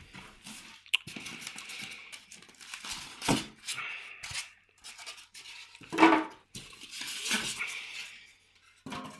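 Packaging being handled and pulled apart by hand: irregular rustling and crinkling with several knocks, the loudest about six seconds in.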